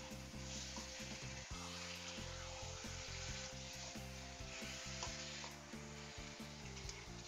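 Fried eggplant slices and a blended chili spice paste sizzling in oil in a wok, stirred with a utensil now and then.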